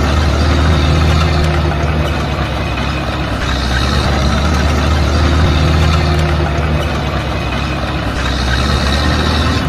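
A motor running steadily with a low hum and a broad hiss, swelling and easing every four to five seconds.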